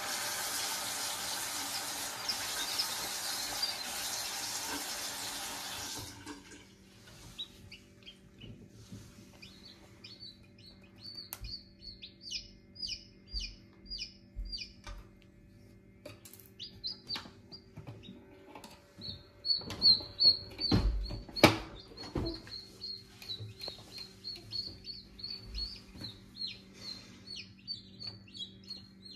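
Running tap water hissing for about six seconds, then cutting off suddenly. After that, baby chicks peep steadily in short, high, falling calls, a few a second, with a couple of knocks from handling about twenty seconds in.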